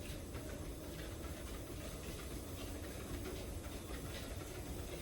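Dog treadmill running steadily at walking speed, a low hum with light, irregular taps of the dog's feet on the moving belt.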